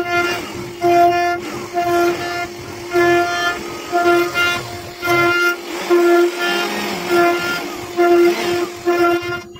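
CNC router cutting wood, its motors giving a pitched whine that starts and stops in short bursts, about one to two a second, over a faint hiss.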